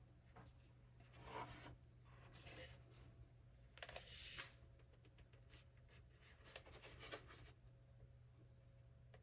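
Near silence: a low steady hum with a few faint, brief rustling or handling noises.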